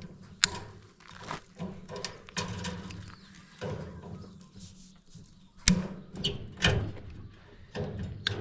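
Irregular knocks, clanks and rattles of wire netting and the kennel-run frame being worked as old mesh is pulled off, with the sharpest knock about two-thirds of the way through and a low hum underneath.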